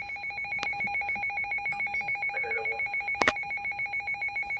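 Emergency Alert System alert tone signalling a flash flood warning: two steady electronic pitches, one low and one high, pulsing rapidly in a fast, even trill. A sharp click sounds about three seconds in.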